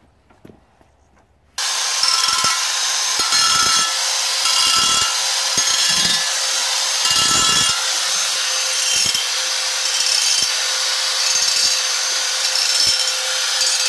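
Handheld angle grinder with a carborundum disc grinding stainless steel to throw sparks for a spark test. It starts abruptly about a second and a half in, with a steady motor whine under grinding noise that swells and eases as the disc bites the metal.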